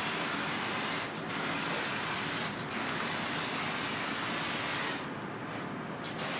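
Electric sprayer running and hissing steadily as it sprays a fine mist, with two brief breaks about one and two and a half seconds in. Near the end it goes quieter and duller for about a second.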